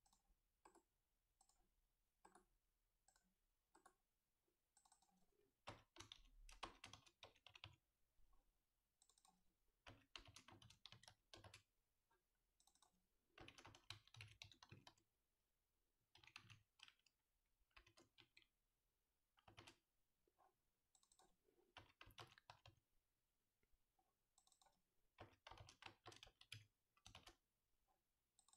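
Faint typing on a computer keyboard in short bursts of rapid key clicks, with a few single clicks in the first few seconds before the typing starts.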